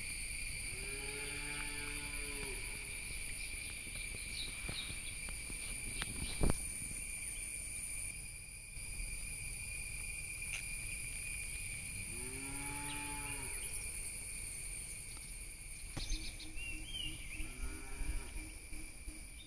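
Cattle mooing: two long calls that rise and fall in pitch, about a second and about twelve seconds in, and a fainter third near the end, over a steady high-pitched insect drone. A single sharp knock about six seconds in.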